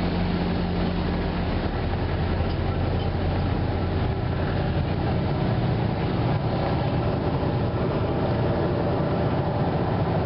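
An engine running steadily, a deep continuous drone; a low hum within it drops out about a second and a half in.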